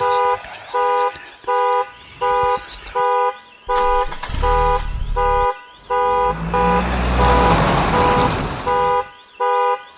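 An alarm-like beeping tone, sounding over and over about three times every two seconds. A low rumble swells up under it through the middle and fades before the end.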